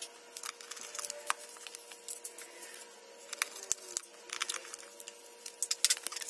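Irregular small clicks, taps and scrapes of hands working on a wall outlet with a screwdriver and small hardware, over a faint steady hum.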